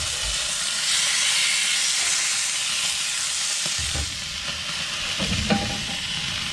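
Venison backstrap searing in a smoking-hot cast-iron skillet over charcoal: a steady, loud sizzle, the sound of a pan hot enough for a quick hard sear. A few low bumps come in the second half.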